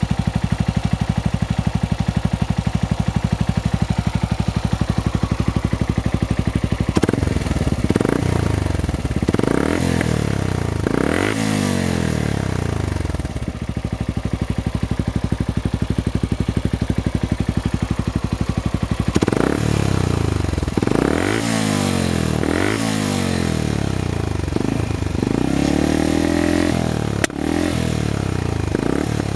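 Yamaha Grass Tracker BigBoy's single-cylinder engine running through a Hurricane Fat Boy aftermarket muffler. It idles steadily, then is blipped up and back down several times in two spells, with idle in between.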